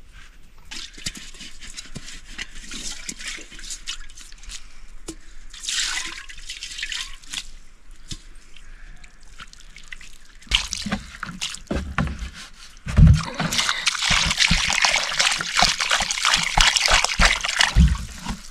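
Water trickling and splashing, much louder and fuller in the last five seconds, with scattered knocks.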